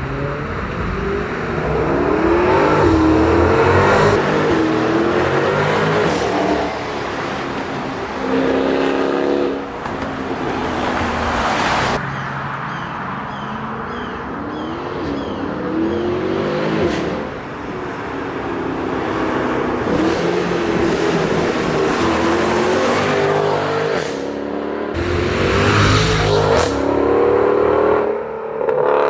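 Renntech-tuned Mercedes-Benz W204 C63 AMG's 6.2-litre V8, loud, revving and accelerating hard in several separate runs, its pitch climbing through each gear and dropping at each shift.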